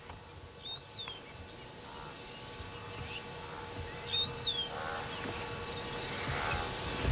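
Open-air wild ambience with a bird giving a short, high two-note call, a quick rising note then a falling one, twice about three seconds apart, over a steady hiss that slowly grows louder. Other, lower calls come in the second half.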